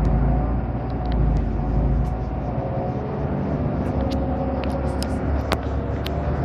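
Irisbus Citybus city bus heard from inside near the doors: its engine and running gear give a steady low rumble with a faint hum. A few sharp clicks come in the second half.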